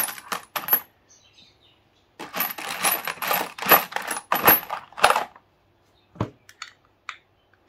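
Steel sockets clinking and jingling against each other as a gloved hand rummages through a plastic tub of them: a short rattle at the start, a dense run of clinking for about three seconds from two seconds in, then a few light clicks near the end.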